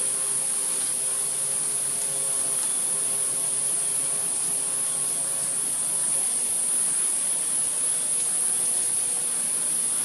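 Steady high-pitched insect chorus, an unbroken shrill hiss. Underneath it is a faint low drone of several steady tones, which fades out about six seconds in.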